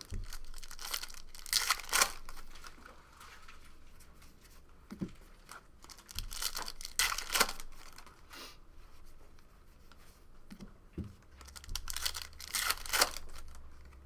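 Foil trading-card pack wrappers being torn open and crinkled, in three bursts about five seconds apart, with quieter handling between them.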